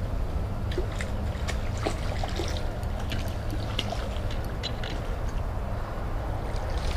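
Water sloshing and splashing as a small hooked tarpon thrashes at the bank, over a steady low rumble, with scattered light clicks.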